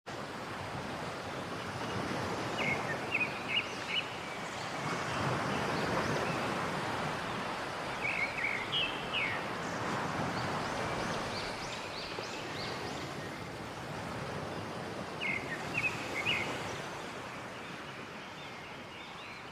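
Rushing water of a waterfall, a steady hiss that swells and eases, with three short bouts of bird chirps over it.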